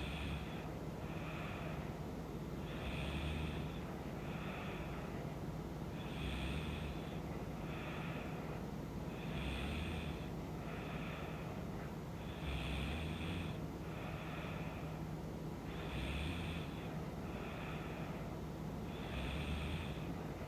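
A sleeping woman snoring, one slow even breath about every three seconds: a louder snore, then a softer breath, repeating.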